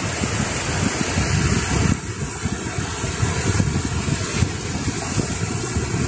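Small sea waves washing onto a pebble beach, with wind buffeting the microphone in a gusty low rumble.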